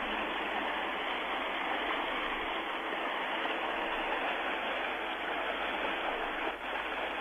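Steady rushing noise with no distinct sounds in it, dipping briefly near the end, on a dull, treble-less old broadcast soundtrack.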